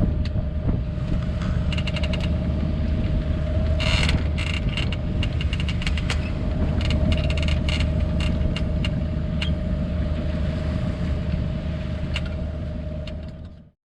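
A yacht's inboard engine running steadily, with a scatter of sharp clicks and creaks over it. The sound fades out just before the end.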